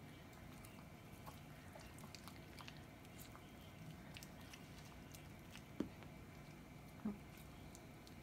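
Faint, scattered clicks and smacks of chihuahuas chewing cooked bowtie noodles, with two short soft thumps near the end.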